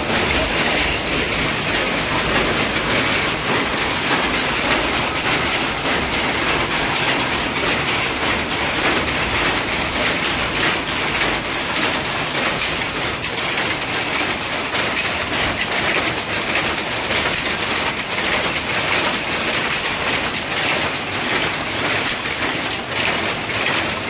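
Several power looms running together in a silk weaving shed, giving a loud, dense, steady mechanical clatter with no break.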